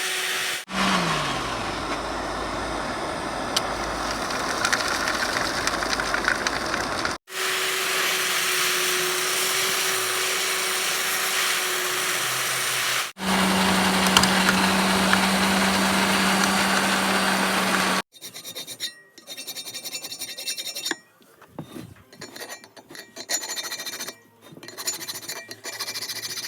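Abrasive work on a cast-iron Record No. 6 vice being restored, in several short edited clips of steady scraping and rubbing noise, one with a steady motor hum under it. In the last part the scraping comes in short, uneven strokes.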